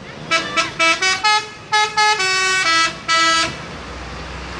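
Garbage truck's telolet musical horn playing a quick tune of short stepped notes, the last few held longer, ending about three and a half seconds in. A low rumble follows.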